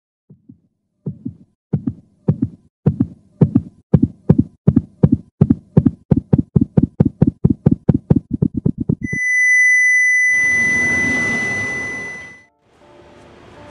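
Sound-effect heartbeat: low double thumps that start slow and speed up steadily for about nine seconds, then stop and give way to a steady high electronic beep like a heart monitor's flatline. A loud rush of noise swells under the beep and fades out, and faint background noise comes in near the end.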